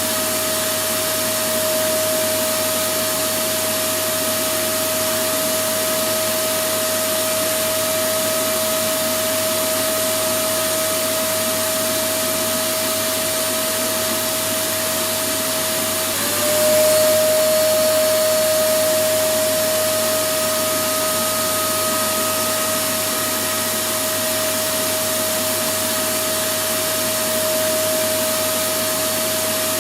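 Electric vacuum cleaner running steadily: a continuous rush of air with a steady motor whine. About halfway through, the whine briefly dips in pitch and resettles while the sound grows a little louder for a moment.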